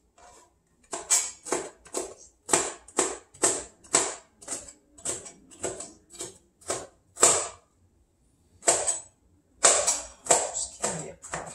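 Chef's knife dicing bell peppers on a plastic cutting board: a steady run of sharp chops, about two a second, with a short pause about eight seconds in.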